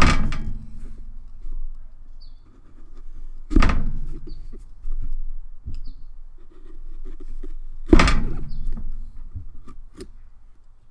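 Three heavy thunks about four seconds apart, with quieter scraping and clicking between, as a kitchen knife is jabbed and worked through a pumpkin's shell.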